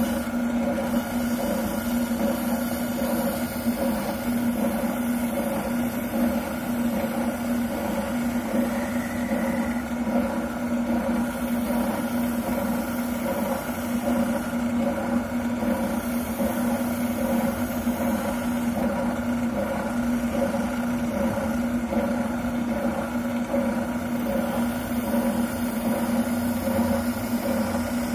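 Wilton oscillating sander running with a steady motor hum, sanding a shotgun buttplate down to the contour of the stock.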